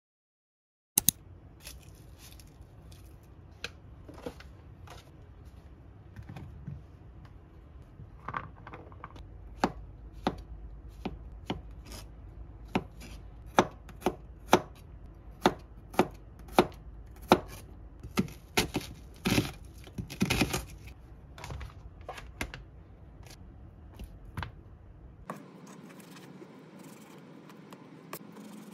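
Kitchen knife chopping mushrooms and onion on a plastic cutting board: a run of sharp knocks on the board starting about a second in, about one and a half a second, with a quicker flurry past the middle. Fewer, fainter strokes near the end as the knife cuts raw beef.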